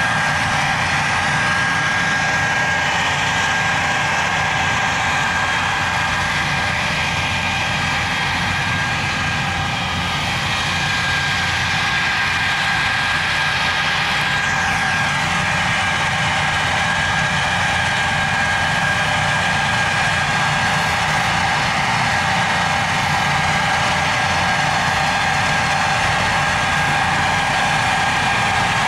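A machine running steadily, a constant whine over an even low rumble.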